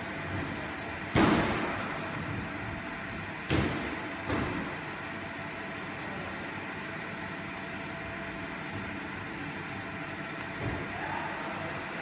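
A steady machine hum, broken by three sharp knocks: one about a second in, then two close together a few seconds later.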